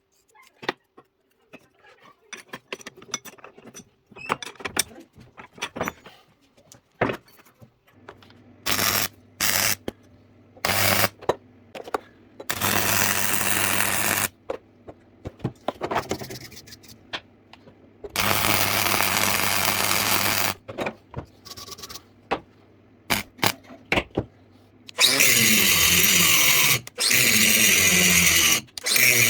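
Light clicks and taps of parts being handled, then a power tool works in several bursts of about two to three seconds each. Each burst brings a harsh hissing noise, and a low steady hum runs between them.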